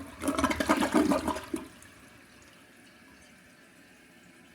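Newly installed toilet flushing: water rushes loudly through the bowl and stops abruptly about a second and a half in. A faint steady hiss follows.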